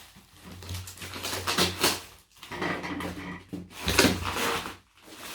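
Cardboard packaging and tape being handled and torn open, an irregular run of rustling and tearing.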